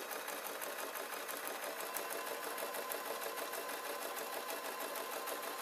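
Domestic electric sewing machine running steadily, stitching a seam along a folded fabric strip, with an even, rapid rattle of the needle.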